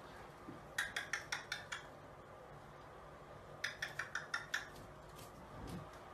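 Two quick runs of sharp clicking taps, about six in each and about five a second, the first about a second in and the second about a second and a half later, then a soft thump near the end.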